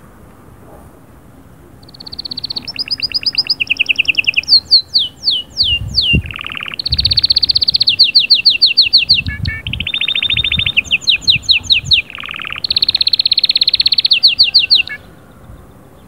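Canary singing a long song of rapid, high rolling trills and repeated tours, with a run of falling whistled notes, starting about two seconds in and stopping shortly before the end.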